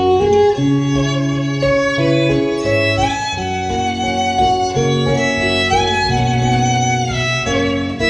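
Instrumental break of a Vietnamese ballad: a violin melody over guitar and a steady bass line, played back through JBL L100 Century loudspeakers driven by a Luxman LX-38 amplifier.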